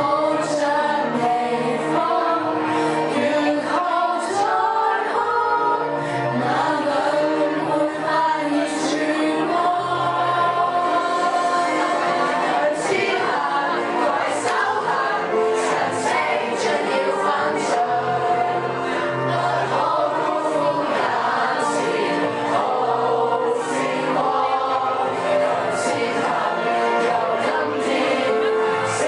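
A group of girls singing a song together, one voice carried by a microphone through the hall's speakers, over musical accompaniment with a steady bass and light percussion.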